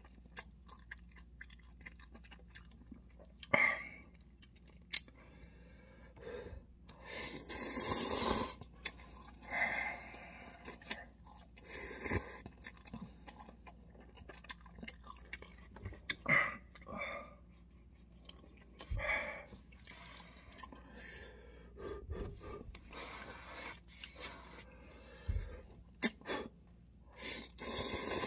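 A man slurping and chewing instant cup noodles, in irregular short bursts with a longer slurp about seven seconds in, and a few sharp clicks.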